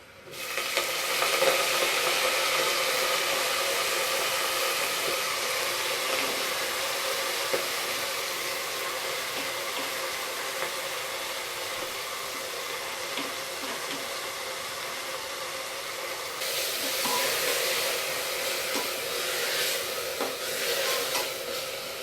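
Freshly washed chopped fenugreek leaves hitting hot oil and fried onions in a pressure cooker, sizzling loudly the moment they go in and then settling to a steady sizzle. From about three-quarters of the way through, stirring adds light scrapes and clicks.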